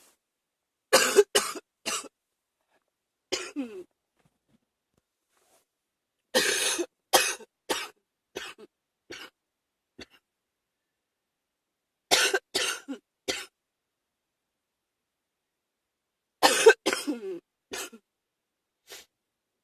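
A person with a cold coughing in fits of two to four coughs, a new fit every four or five seconds.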